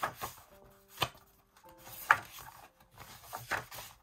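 Album inclusions being handled on a table: paper photo cards and printed sheets tapped and set down, four sharp taps with the loudest about two seconds in, over faint background piano music.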